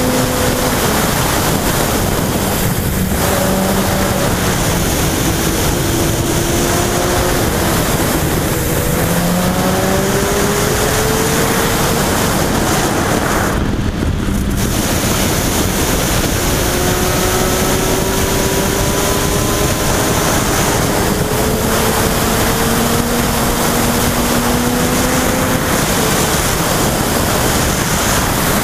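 Yamaha FZ1's inline-four engine pulling through the gears, its note slowly rising and dropping back several times, under heavy wind noise on the microphone at road speed. The sound briefly dips about halfway through.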